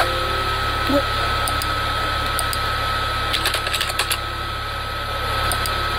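A Windows alert chime fades out at the start as a 'Permission denied' dialog pops up. A quick run of keyboard typing clicks follows a little past halfway, as 'antivirus' is typed into the Windows search box. A steady high whine and hiss underlie it all.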